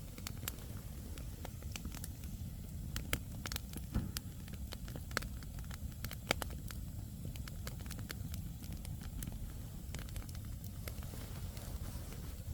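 Wood campfire burning, with irregular sharp crackles and pops from the burning logs over a low steady rumble.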